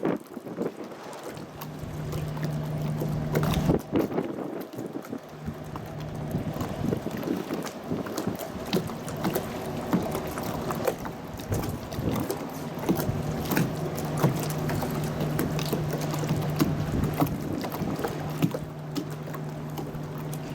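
Small passenger ferry's engine running with a steady low hum that drops out twice and comes back, over water sloshing and slapping with many short splashes.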